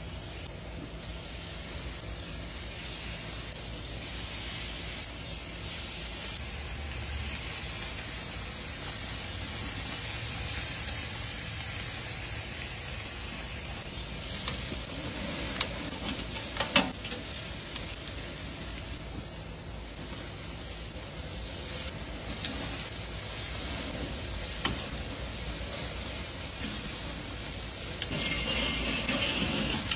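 Bacon-wrapped chorizo sausages sizzling steadily on a charcoal grill grate over hot coals. Two sharp metallic clicks of grill tongs come about halfway through.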